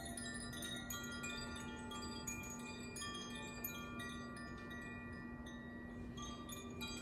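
Tuned sound-healing wind chimes (Koshi and Zaphir chimes) being rung by hand, many clear bell-like notes struck again and again and ringing on over one another. The strikes thin out in the middle and come thicker again near the end, over a steady low hum.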